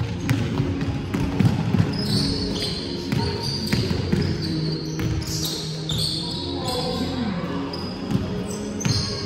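Basketball game play: the ball bouncing in irregular knocks, sneakers squeaking on the court in short high squeals, with players' voices underneath.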